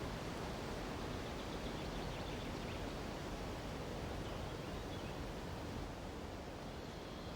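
Steady rushing of wind through the treetops mixed with the flow of a nearby mountain river, easing slightly about six seconds in.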